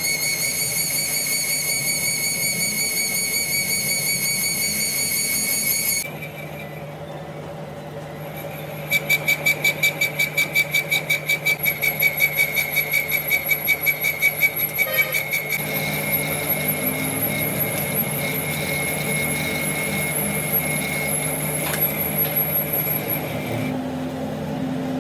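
Metal-cutting lathe machining steel, the tool giving a high-pitched squeal over the steady hum of the machine's motor. The squeal breaks off for a few seconds, then comes back pulsing about three to four times a second, as an interrupted cut does. It then runs steady again and stops near the end.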